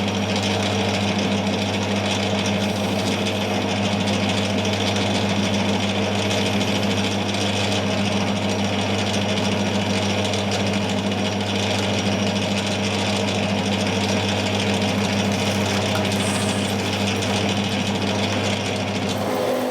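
Metal lathe turning a 4140 steel shaft, running steadily with a strong low motor hum under the noise of the cut. It stops suddenly near the end.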